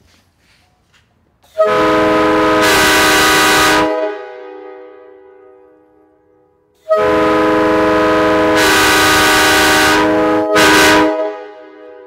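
Homemade five-chime PVC K5LA train horn, tuned to 311, 384, 415, 497 and 622 Hz, blown on compressed air: a blast of about two seconds, then a longer one of about three and a half seconds with a short toot right after it. Each blast is a steady multi-note chord with a strong rush of air, dying away over a second or two once it stops.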